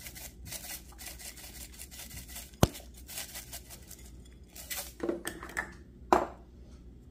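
Shredded coconut being shaken out of a container onto a plate: a run of quick dry rustling shakes, a sharp click about two and a half seconds in, and two knocks with a short ring later on.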